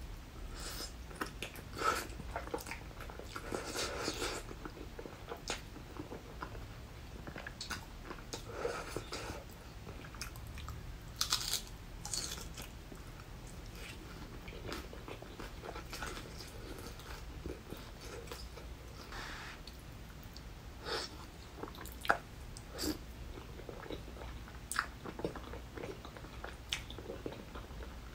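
Close-miked eating: ramen noodles and tteokbokki slurped in several drawn-out sucks, between them wet chewing and biting with occasional crunches.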